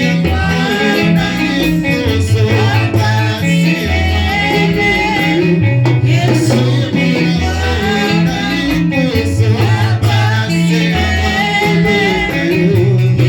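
Church worship music: singing over a band with guitar and a bass line stepping between held notes.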